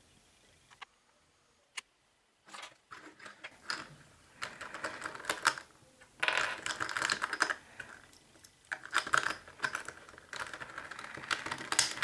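Alpha CC 3x3 speed cube being turned by hand: its plastic layers click and clatter in quick bursts of turns. A couple of single clicks come first, and the rapid turning starts about two and a half seconds in.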